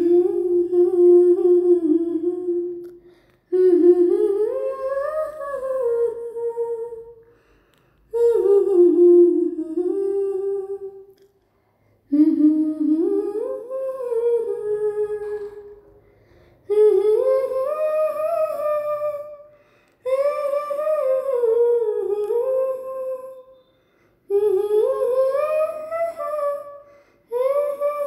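A woman humming a wordless tune in phrases of about three to four seconds, each rising and falling in pitch, with short pauses between them.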